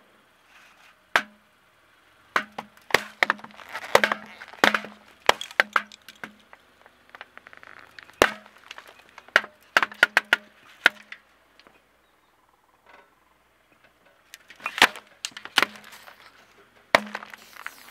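Full aluminium beer cans bursting and crumpling under a car tyre. Sharp cracks and pops come in quick clusters with short pauses between, as one can after another gives way.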